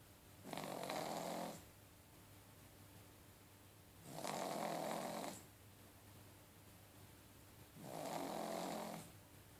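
A pug snoring: three snores, each about a second long, coming about every four seconds.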